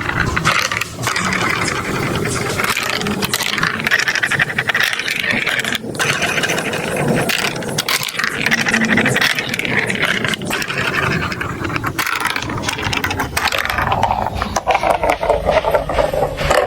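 Marbles rolling and clattering through a plastic marble run, a continuous dense rattle of many quick clicks.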